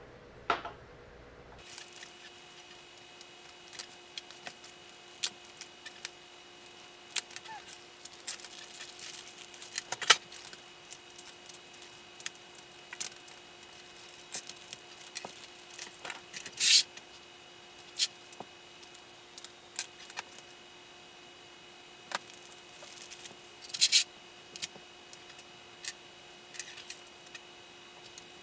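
Scattered light clicks and rattles of small plastic parts and hand tools being handled on the workbench during an RC truck suspension repair, with a few louder clatters. A faint steady electrical hum runs underneath.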